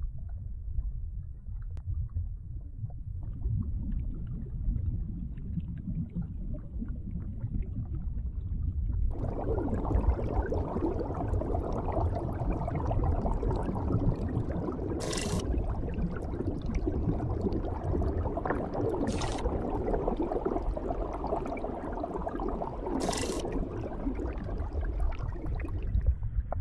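Electronically processed kitchen-sink water sounds: a steady low rumble, joined about nine seconds in by a denser, brighter wash of water noise, with three brief hisses over it.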